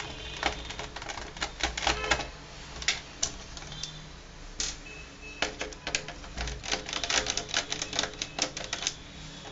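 Rapid, irregular clicking and tapping from hands working on a Dell Inspiron 15R laptop's opened palmrest: small screws and the plastic-and-metal case being handled during disassembly.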